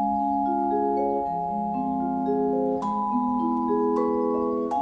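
Background music: a slow pattern of held, pitched notes stacked into chords, with new chords struck near the middle and again near the end.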